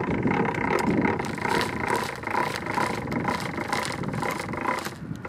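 A BMW car's engine running steadily, dropping away about five seconds in.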